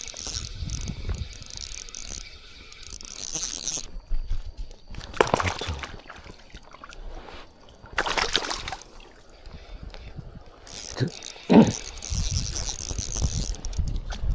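Fishing reel being cranked, its gears whirring and ratcheting as line is wound in. The winding runs for about the first four seconds and starts again near the end, with a few short louder noises in between.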